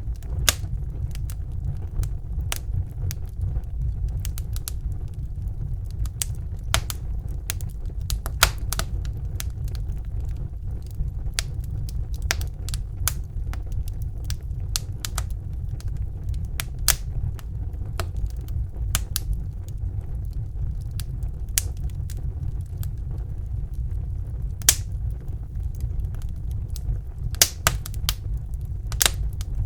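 Wood fire in a fireplace crackling: irregular sharp pops and snaps, a few louder than the rest, over a steady low rumble.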